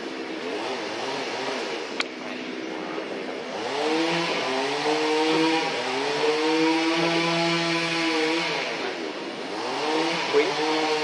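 A motor vehicle's engine running, its pitch climbing about four seconds in, holding, then dropping and climbing again near the end. A sharp click about two seconds in.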